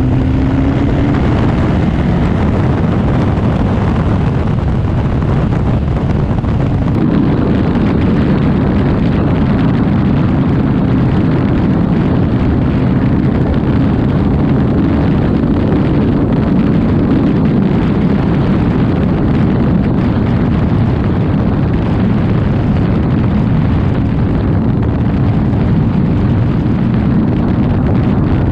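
BMW R nineT's boxer-twin engine running on the move, largely buried under a loud, steady rush of wind buffeting the microphone; early on the engine note rises slightly as the bike accelerates.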